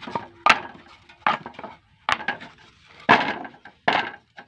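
Sharp knocks on wood, about seven at uneven intervals of roughly half a second to a second, as a wooden love-bird breeding box is being built.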